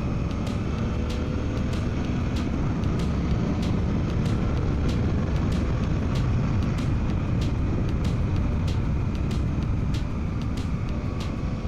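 Suzuki V-Strom 800DE's parallel-twin engine running under way through curves, its pitch rising and falling gently, under heavy wind noise as heard from a microphone inside the rider's helmet. A light, regular ticking comes about three times a second.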